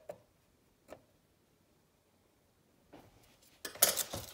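Light taps from cookie decorating, then near silence. Near the end a brief loud rustle of a plastic icing piping bag being picked up.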